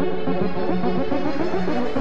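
Background music with a steady, repeating pattern of notes.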